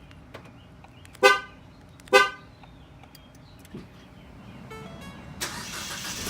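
Ford Fiesta's horn giving two short chirps about a second apart, followed near the end by a steady rushing sound.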